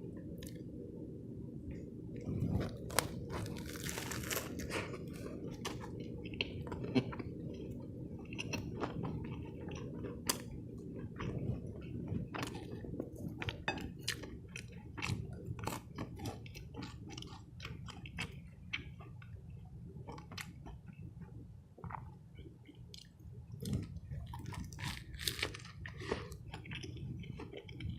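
Close-miked chewing of a cheese fish sub and fries, with crunchy bites and wet mouth clicks, and a crunchier stretch about four seconds in. A steady low hum runs underneath.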